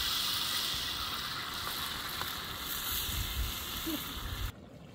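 Chopped tomatoes and onions frying in a large wide pan over an open fire: a steady sizzle that cuts off suddenly near the end.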